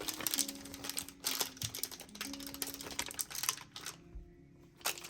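Paper and packaging being handled: scattered light clicks, taps and rustles, easing off briefly about four seconds in. Faint steady background music sits underneath.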